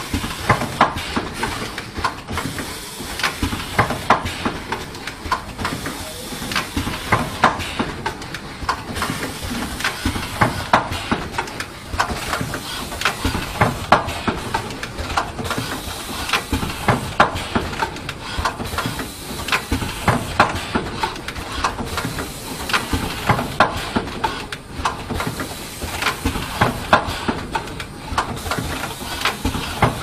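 Automatic connector assembly and inspection machine running: a rapid, irregular clatter of clicks and knocks from its mechanism, several a second, over a steady hiss.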